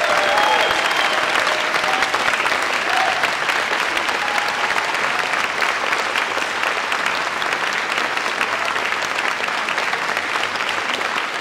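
Audience applauding: dense, steady clapping from a large crowd at the close of a performance, easing off slightly toward the end.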